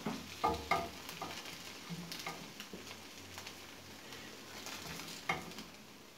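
Plastic slotted spatula scraping and knocking against a nonstick frying pan as golden-brown noodle patties are lifted out, over the sizzle of a little oil on a low flame. The sharpest knock comes about five seconds in.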